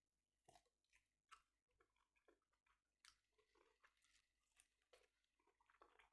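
Faint chewing of food close to the microphone: a string of short, irregular wet clicks and smacks of a mouth eating.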